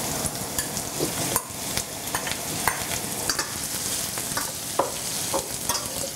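Gai lan (Chinese broccoli) stems sizzling in hot oil in a stainless steel wok as they are tipped in and stir-fried, with the metal spatula scraping and clinking against the pan every second or so.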